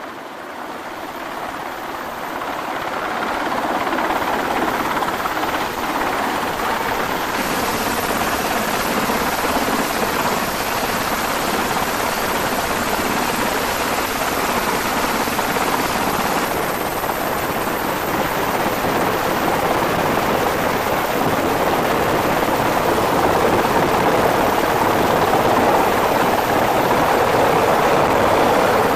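MH-60 Seahawk helicopter's rotors and turbine engines running close by, a steady, dense wash of noise that grows louder over the first few seconds as the helicopter comes in over the deck, then holds.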